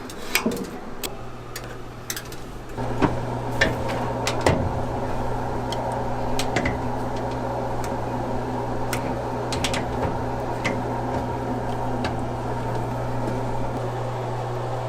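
A steady mechanical hum that gets louder about three seconds in, with scattered sharp clicks and clinks over it.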